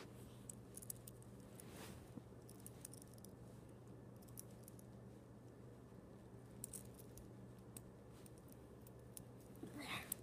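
Near silence: a faint steady low hum with scattered small clicks and rubs, like handling noise from fingers on the device.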